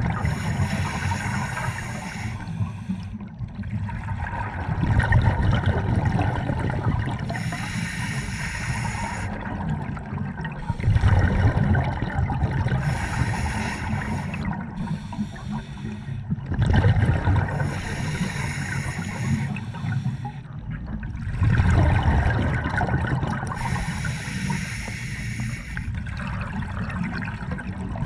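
Scuba breathing through an open-circuit regulator underwater, in a slow cycle of roughly six seconds. Stretches of regulator hiss alternate with louder rushes of exhaled bubbles, about four breaths in all.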